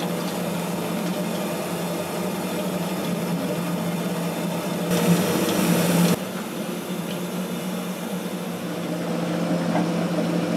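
Steady mechanical hum of a longline fishing boat's engine and hydraulic line hauler as the longline is hauled in, with a louder rushing noise for about a second around five seconds in.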